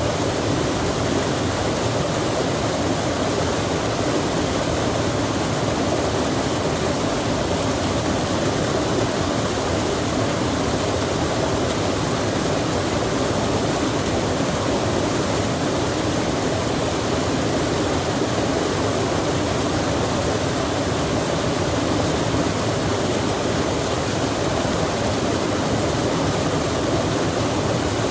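Steady, unbroken rushing of flowing water from a stream or small waterfall, with no single splashes or other events standing out.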